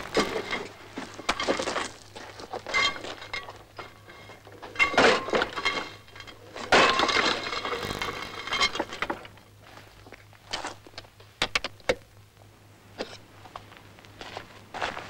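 Irregular clanking and rattling of metal from a small railway track trolley being worked on and handled, with ringing squeals about three seconds in and again around seven seconds in, and a few sharp clicks near the end.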